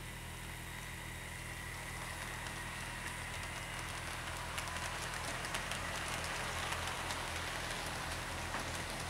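OO gauge model West Country class steam locomotive and its train of coaches running along the track: a steady rolling rush that grows louder, with light clicks over the rail joints from about halfway in.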